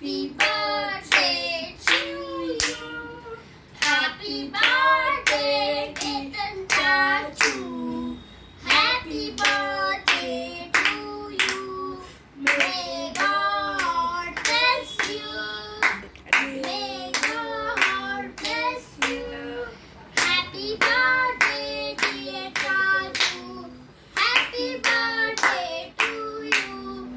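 Children singing a song together while clapping their hands along to a steady beat.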